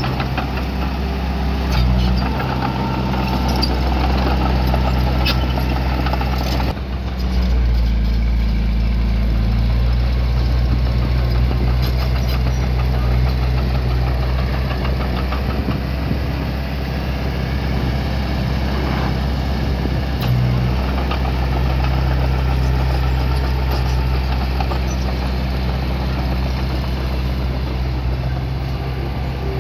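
Diesel engine of a piece of earthmoving machinery running steadily at low revs, with an abrupt shift in its sound about seven seconds in.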